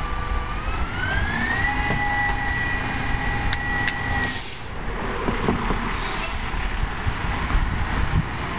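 Garbage truck's diesel and the rear loader's hydraulics working. A whine climbs in pitch over about a second, holds steady, and stops about four seconds in, typical of the engine throttling up to drive the packer pump. A short hiss follows, then the engine runs on with scattered clanks.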